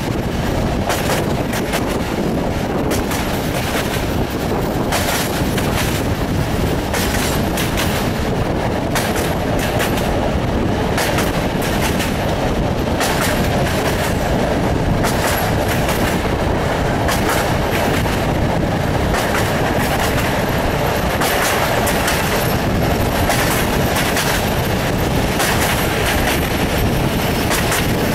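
Passenger train running along the line, heard from an open carriage window: a steady rumble and rush of wheels on rail, with frequent irregular clicks of the wheels over rail joints.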